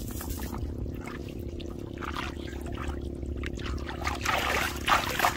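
Hands splashing and scooping in shallow muddy water, with water trickling and pouring off what is lifted. The splashing is louder and busier from about four seconds in.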